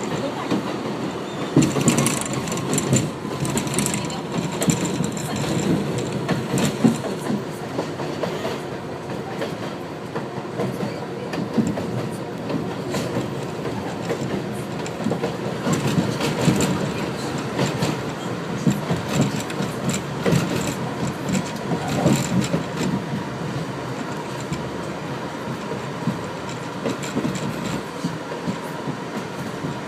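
7 train subway car running on the rails, with a steady rumble, repeated clicks and clatter of the wheels over rail joints, and a faint steady whine.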